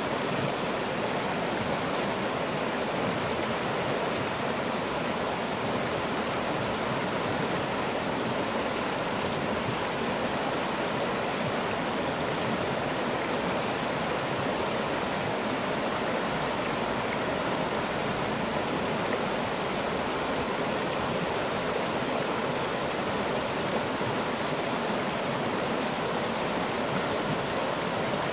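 Water running steadily over the shallow rocky rapids of a creek.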